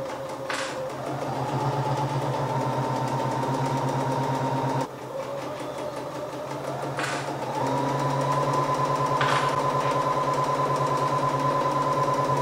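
Bernina electric sewing machine stitching through layered cork fabric: a steady motor hum with a fast, even needle rhythm. It slows briefly about five seconds in, then runs on a little faster, with a few short sharp clicks along the way.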